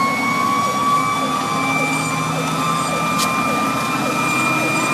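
Fire engine siren heard from inside the cab, holding one long, steady high wail after a slow rise. It sounds over the truck's engine and road rumble.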